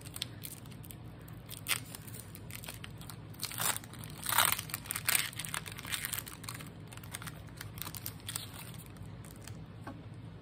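Foil wrapper of a Pokémon booster pack crinkling and tearing as it is pulled open by hand, in scattered short crackles with the loudest burst about four to five seconds in.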